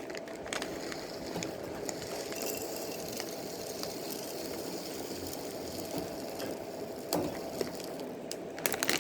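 Dry bird seed and its container being handled: a steady faint rustle with a few light clicks.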